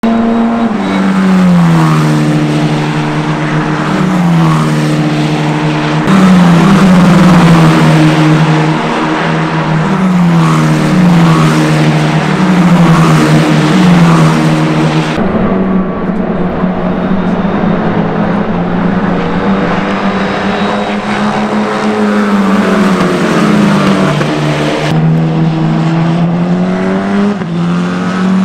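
Tatuus F4 T-021 Formula 4 cars' turbocharged 1.4-litre four-cylinder engines running hard on track. The engine pitch falls again and again and jumps back up each time, as the cars brake and downshift.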